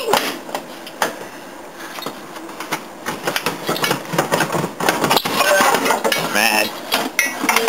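A few sharp metal clicks and knocks as a part freed under a car is twisted by hand, with muffled talk near the end.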